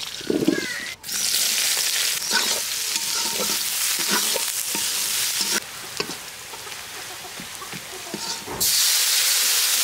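Food frying in hot oil in a pan: a loud sizzle that starts suddenly about a second in, eases to a quieter sizzle with scattered clicks of a spatula stirring, and swells sharply again near the end.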